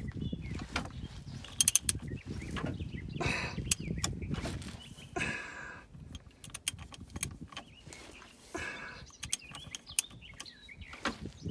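VW T4 engine being turned over by hand with a socket wrench on the crankshaft pulley bolt: scattered metallic clicks and knocks as the crank moves and stops. The owner takes the knock for a dropped valve striking the top of the piston, meaning the engine is finished.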